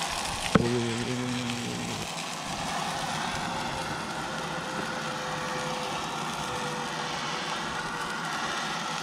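Jetboil canister gas stove burning steadily under a foil-lined pan, a continuous hiss with a faint steady whine. A sharp click comes about half a second in, with a short low hum after it.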